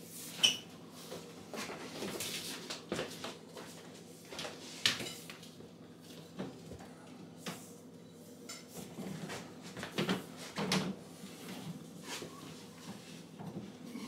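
Electrical wires being handled and fed down through a hole in a wall's bottom plate: scattered rustling, light scrapes and small knocks, with a sharp knock about half a second in and a cluster of louder knocks around ten to eleven seconds in.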